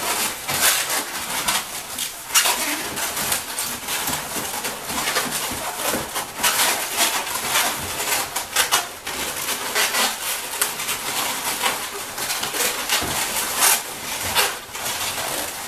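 Long latex modelling balloons squeaking and rubbing against each other as four balloon stems are braided together by hand: a dense, uneven run of short squeaks and rubs.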